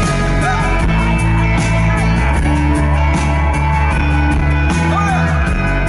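Live pop-rock band playing an instrumental passage between vocal lines: strummed acoustic guitar over bass and a steady beat.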